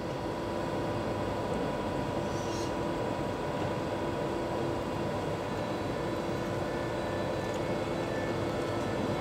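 SBB Re 460 electric locomotive starting to pull away with its train, giving a steady hum with several steady tones over a wash of noise.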